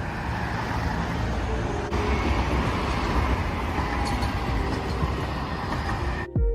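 Steady road-vehicle noise, a continuous rumble with a hiss, with soft background music faintly under it. It cuts off sharply near the end.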